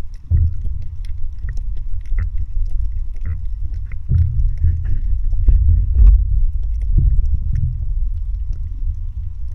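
Underwater sound picked up by a submerged camera over a coral reef: a low, muffled rumble of water moving against the housing that swells and fades, with scattered sharp clicks and crackles.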